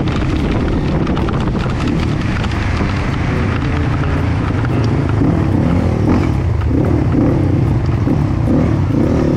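Dirt bike engine running under way along a wet road, heard from the rider's helmet, with a steady noisy hiss over it.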